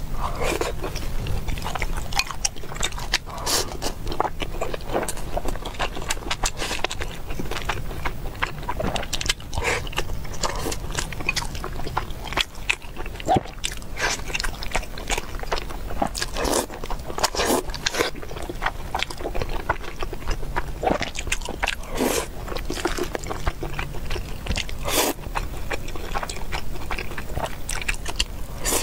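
Close-miked eating sounds: wet chewing and lip smacks with many short, sharp clicks, and chopsticks scraping and tapping in a glass food container.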